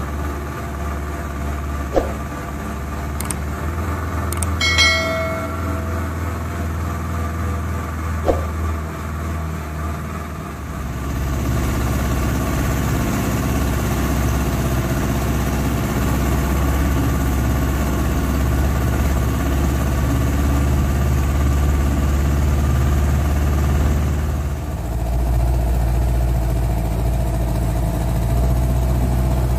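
A small boat's outboard motor running steadily under way, getting louder about eleven seconds in and easing off briefly near the end.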